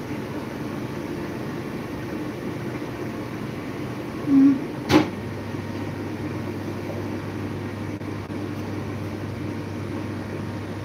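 Steady hum of a running kitchen appliance. About four seconds in there is a short low tone, then a sharp click, after which a second, lower hum joins in.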